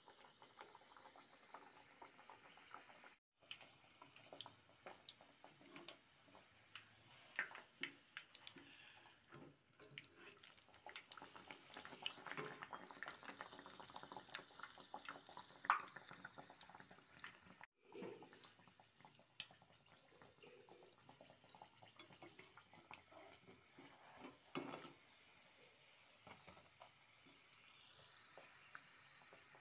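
Egg paratha shallow-frying in hot oil in a nonstick pan: a faint, steady sizzle full of small crackles and pops, on a low-to-medium flame. The sizzle breaks off briefly twice, and a single sharper tick stands out about sixteen seconds in.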